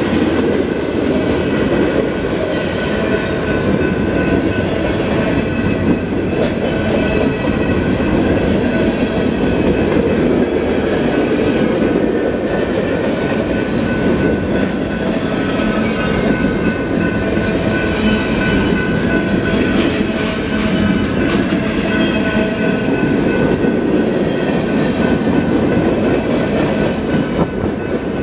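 Union Pacific mixed freight train's cars rolling past a grade crossing: a loud, steady rumble with the clickety-clack of wheels over the rail joints.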